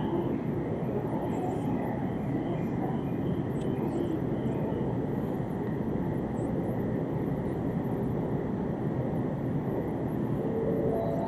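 Steady low rumble of background noise on an open Shinkansen station platform, even throughout, with no train passing and no distinct events.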